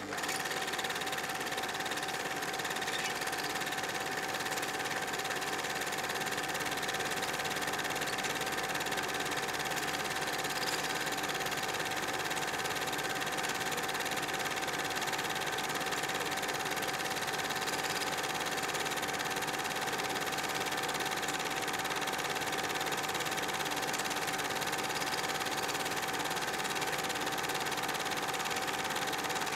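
A steady, unchanging machine-like hum with a constant tone over an even hiss.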